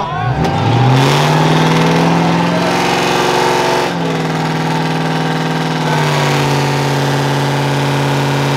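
A 1999–2004 Ford Mustang's engine revs up sharply about half a second in and is held at steady high revs, with a brief dip around four seconds in before it holds again. A broad hiss runs under it, fitting a burnout with the rear tyres spinning on the wet pad.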